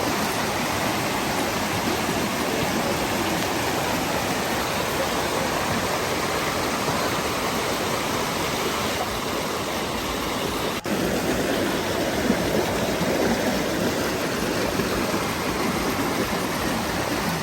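Waterfall and its stream rushing: a steady, dense wash of falling and flowing water, with a momentary dip about eleven seconds in.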